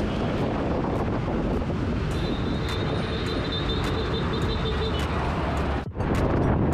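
Wind rumbling on the microphone of a moving bicycle, with road traffic around it and a faint steady whine for a few seconds in the middle. The sound drops out for an instant near the end and comes back as slightly louder wind noise.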